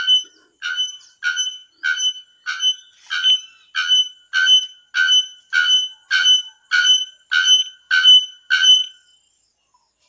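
Bare-throated bellbird (araponga) calling: a loud, ringing metallic note repeated evenly, a little under two per second, stopping about nine seconds in.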